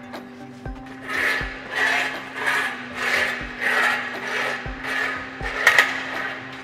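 Rhythmic rasping, about ten strokes roughly 0.6 s apart, with a few dull knocks, as a person climbs a steel ladder in a climbing harness.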